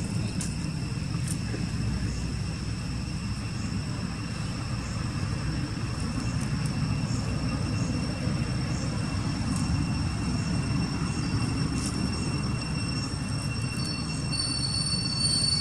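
Steady low rumble, with faint unbroken high-pitched tones held above it.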